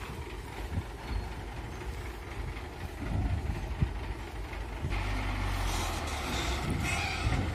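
Heavy truck engine running with a steady low rumble, growing louder and fuller about five seconds in.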